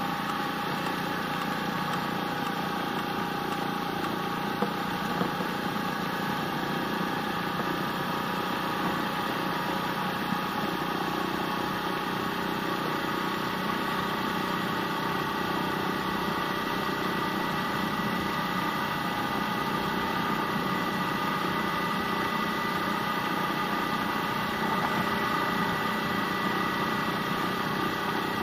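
Small engine of a step-through motorbike running steadily while riding along a road, holding a nearly even pitch, a little louder near the end.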